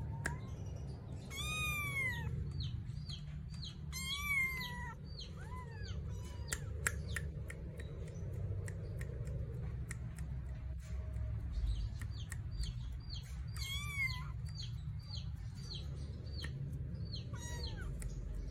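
Two-month-old Persian kittens mewing: a handful of high meows that rise and fall in pitch, the longest about a second and a half in, with short high chirps repeating in the background.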